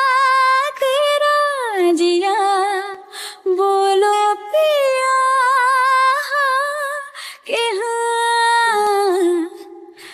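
A woman's singing voice, isolated from the song with no instruments, sustaining long notes with vibrato and sliding between pitches in drawn-out melodic phrases. It fades briefly near the end.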